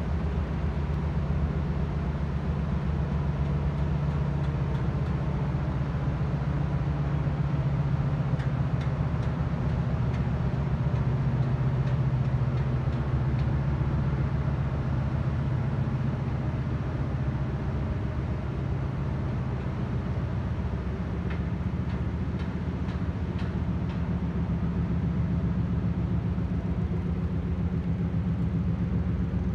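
Steady low engine rumble with a deep hum from a passing container ship. The hum shifts slightly about two-thirds of the way through.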